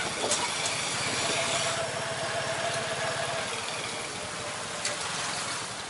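Small motorcycle engine running steadily as it pulls a tuk-tuk carriage at low speed through the street, heard from the passenger seat, with road noise and a few sharp clicks.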